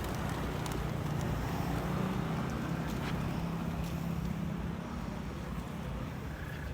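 A motor vehicle engine running close by over street noise, a steady low hum that eases off after about five seconds.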